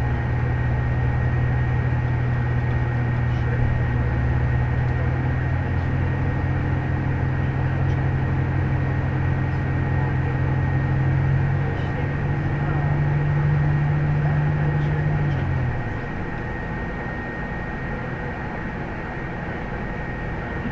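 Steady low drone of a vehicle under way, with a faint constant high whine over it. The drone rises a little about twelve seconds in, then falls away at around sixteen seconds, leaving a quieter, even rumble.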